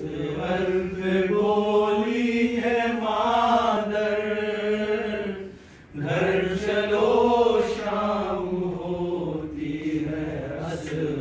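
Unaccompanied male voice chanting the opening of a nauha, a Shia lament, in two long, drawn-out phrases with a short break for breath between them.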